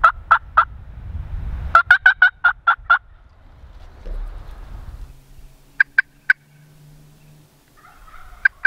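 Turkey yelping, loud and close: the tail of one run of sharp, evenly spaced notes, a run of about eight notes about two seconds in, then three short notes about six seconds in and two more near the end. Low wind rumble on the microphone during the first half.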